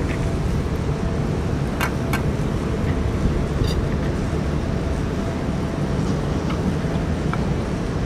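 Steady low rumble of strong typhoon wind buffeting the microphone, with a few faint clicks of cats eating from metal dishes.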